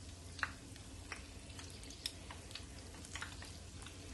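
Battered corn dogs frying in a pan of hot oil: irregular small crackles and pops of spitting oil over a low steady hum.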